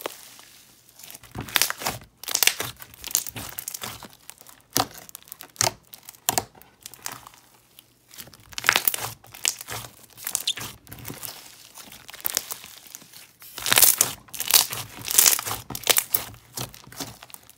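Hands squishing and kneading a clear jelly cube slime with foam beads, the jelly cubes breaking up under the fingers. It sounds like uneven runs of short clicks and pops with brief quiet gaps, busiest near the end.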